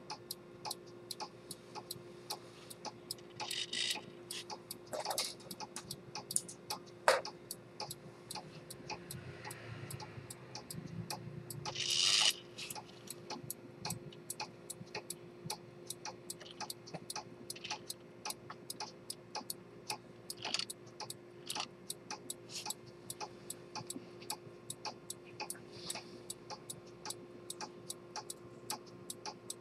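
Pocket chronometer with an Earnshaw spring-detent escapement ticking steadily, about two and a half ticks a second. A few louder knocks and a brief rustle of handling break in during the first half.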